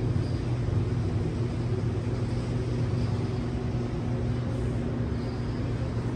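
Audi S4 B5's 2.7-litre twin-turbo V6 idling steadily, with an even low hum.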